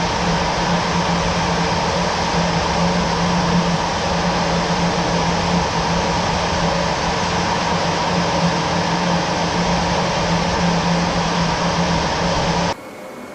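Jet aircraft engine running steadily: a loud, even rush over a steady low hum. It cuts off abruptly near the end, leaving a faint hiss.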